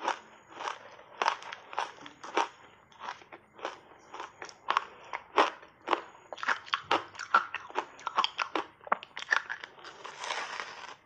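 Matcha-powder-coated ice being chewed and crunched: a run of sharp crunches, a couple a second, then a longer crackling bite into the slab near the end.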